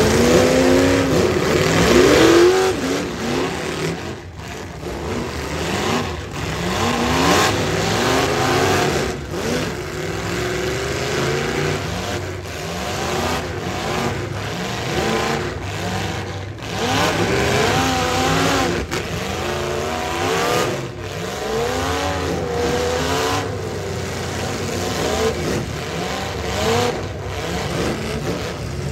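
Demolition derby car engines revving hard and unevenly, rising and falling over and over, as the cars push and ram one another.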